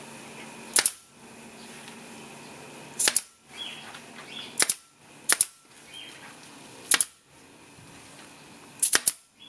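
Pneumatic nail gun firing small pins through carpet into a hardwood trailer bunk: about seven sharp cracks at uneven intervals, two of them coming in quick pairs, around three seconds in and near the end.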